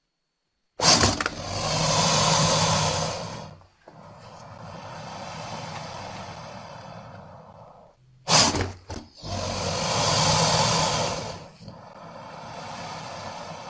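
American crocodile hissing: two long forceful hisses, each starting abruptly and then trailing off into a quieter breathy hiss, with a low rumbling tone under the loudest parts.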